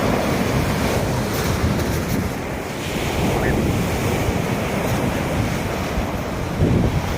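Sea waves washing on the shore, with wind buffeting the microphone in a steady rush of noise.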